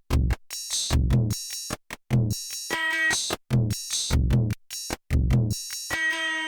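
Nord Drum 3P electronic drum voices playing a programmed groove: a steady rhythm of deep low drum hits and bright, sharp upper hits. A pitched, bell-like tone rings briefly about halfway through and rings again near the end, trailing off.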